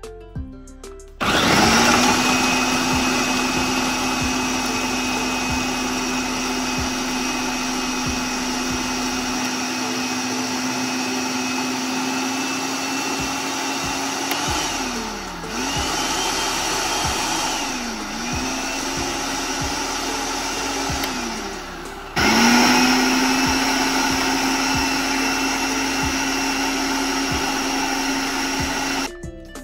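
Electric food processor chopping a red onion with its S-blade. The motor starts about a second in and runs steadily. In the second half it slows and picks up again three times, then cuts off just before the end.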